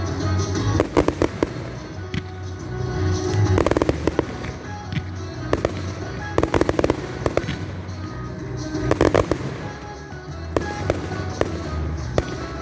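Fireworks display: shells bursting in clusters of quick bangs and crackles every two to three seconds, with music playing underneath.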